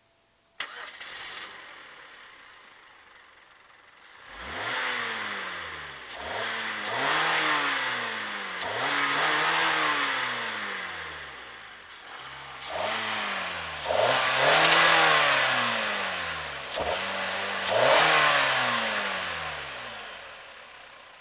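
2009 Hyundai Sonata's 2.4-litre four-cylinder engine revved up and let fall back about seven times, the pitch rising and dropping with each rev. A sudden loud sound comes about half a second in, then lower, fading running before the revving begins about four seconds in.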